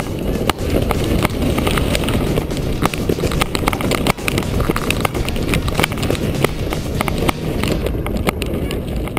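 Wind buffeting a GoPro camera carried aloft on a kite line: a steady low rumble with irregular sharp clicks all through it.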